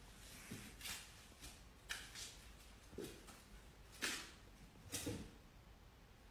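A small puppy climbing a staircase one step at a time, with about five faint, soft sounds roughly a second apart as it heaves itself up.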